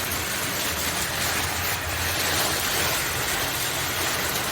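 A car engine running steadily, with a constant hiss over a low hum.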